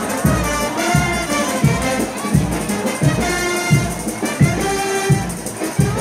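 Frevo brass band of trombones and trumpets playing a fast frevo tune over a steady bass drum beat.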